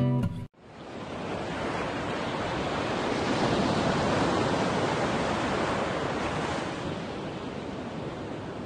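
Sea surf washing: an even rush of breaking waves that swells over the first few seconds and then slowly fades.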